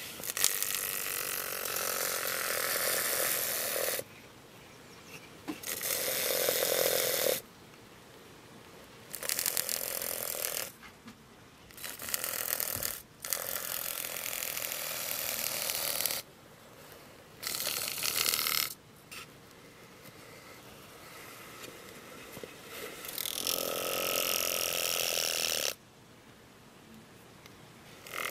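Texas rat snake vibrating its tail against the inside of a plastic bucket: a dry buzzing rattle in about seven bursts of one to four seconds, with short pauses between. This is the rat snake's defensive tail-rattling warning.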